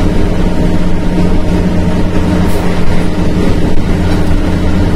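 Scania truck's diesel engine running steadily under way, heard from inside the cab, with an even engine drone that holds one pitch.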